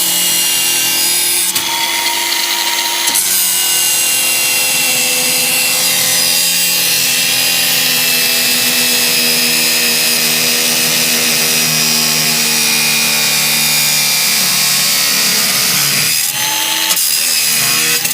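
Power saw cutting off the protruding threaded ends of steel carriage bolts, its motor running steadily under load with a high hiss from the cut. The pitch shifts briefly near the start and dips near the end.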